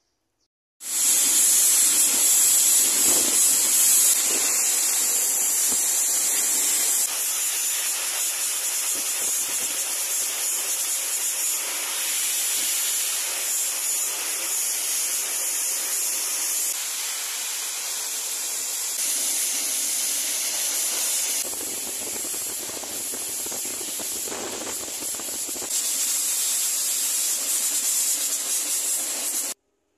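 Pet blow dryer blasting air through the wire cage onto a freshly bathed cat's wet fur, a loud steady hissing rush. It starts suddenly about a second in, shifts in level a few times and cuts off just before the end.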